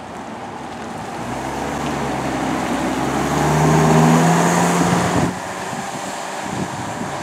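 A Ford ambulance's engine and tyres as it drives past at close range: a steady engine hum with road noise that grows louder, peaks, then drops off suddenly about five seconds in.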